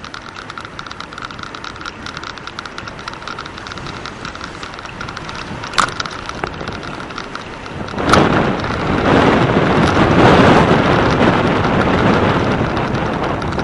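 Wind rushing over the microphone of a camera carried on a moving bicycle, with rapid light ticking in the first part; about eight seconds in the rush grows much louder and stays loud.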